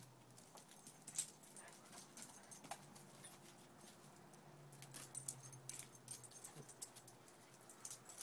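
Two dogs, a Doberman and a small fawn pug-type dog, play-wrestling on a concrete patio: scattered light clicks and jingles of claws and collar tags as they scuffle.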